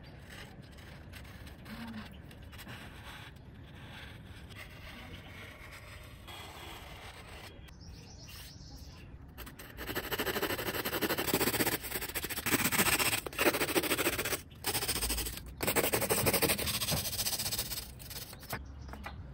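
A bare hacksaw blade sawing through a block of thermocol (expanded polystyrene foam): loud rasping strokes in runs with short pauses, starting about halfway through. Before that, only faint handling sounds.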